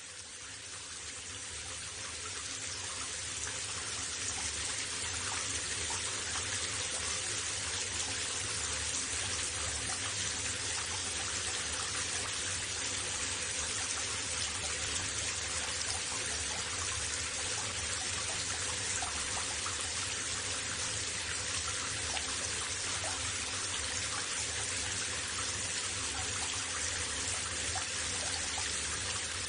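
Steady rushing hiss of running water used as white noise, with a faint low hum beneath it; it fades in over the first few seconds and then holds level.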